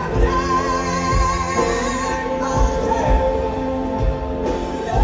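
Live rock band playing a slow, gospel-style ballad, with a woman's voice holding a high note with wide vibrato for about a second and a half early on, over sustained chords and steady drum hits.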